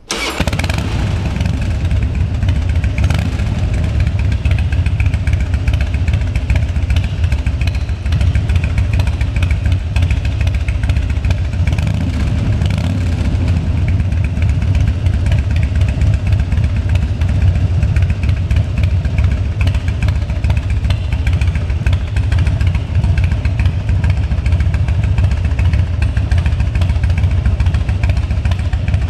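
Harley-Davidson Dyna Screaming Eagle Edition's air-cooled V-twin running through a Vance & Hines exhaust, with a Screaming Eagle air filter, carburettor and cam. It comes in suddenly at the start and runs steadily at an even level.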